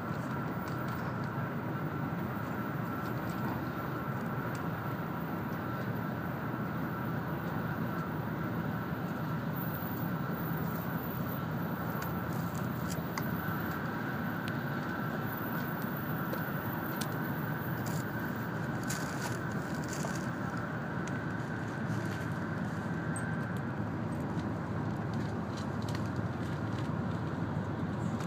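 Cabin noise of an N700-series Shinkansen running at speed: a steady rumble with a faint steady whine. A few light ticks come in during the second half.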